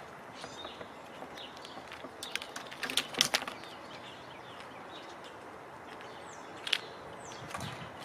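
A gray squirrel handling peanuts on a wooden feeder post close to the microphone: a cluster of sharp taps and scratches a couple of seconds in and another tap near the end. A few faint bird chirps come in near the end over a steady outdoor background.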